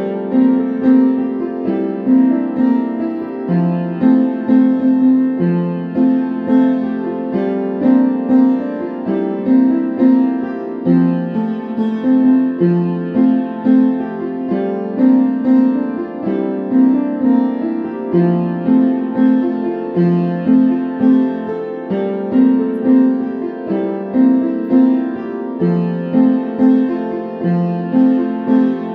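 Background piano music, a gentle piece of notes in a steady repeating pattern.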